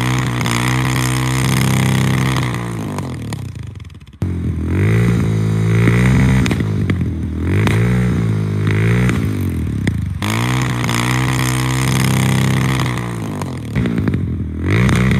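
2012 Suzuki DR650's single-cylinder four-stroke engine revved through open aftermarket exhausts: first a custom pipe with a modified, packed baffle, revved up, held and let fall, with a very raw metallic sound; then, after a cut, a Screaming Demon exhaust with no baffle, blipped up and down about five times.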